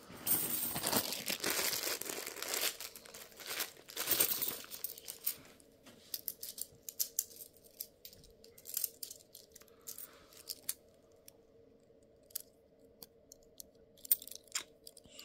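Plastic coin bag crinkling and tearing open in two loud spells, the first lasting over two seconds and the second about four seconds in, followed by scattered light clicks of 50p coins being handled.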